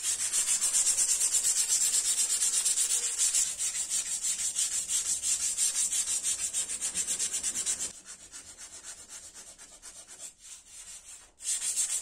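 Sandpaper rubbed back and forth over dried body filler on a car hood, in quick even strokes of about five a second. The strokes turn softer about eight seconds in and loud again near the end.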